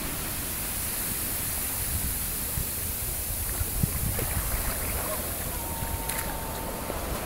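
Ocean surf on a beach: the foam of a spent wave washing over the sand and draining back, a steady hiss of water with low wind rumble on the microphone.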